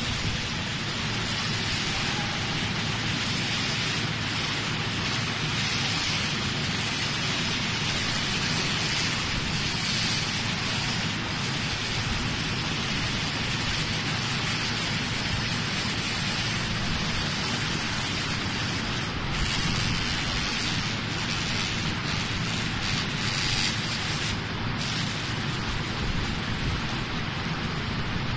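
Laser rust-cleaning machine ablating rust from a steel tube: a steady, dense crackling hiss, briefly cut twice in the later part.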